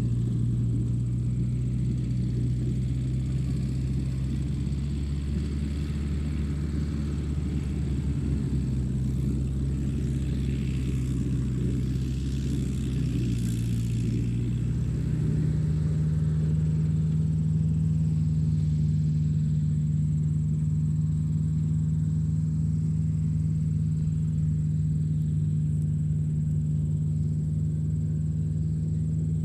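Steady low motor hum from a radio-controlled toy construction vehicle, stepping up to a higher pitch about halfway through, with a faint steady high whine over it.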